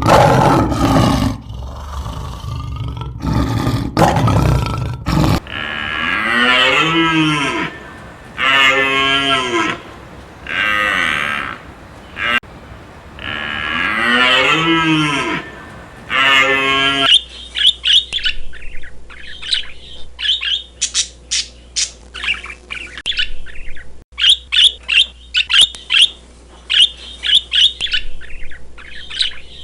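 Farm animals calling, in three parts. First a loud, rough noise for about five seconds. Then a run of six long pitched calls of a second or so each. From about 17 seconds in, a fast chatter of short, high bird calls.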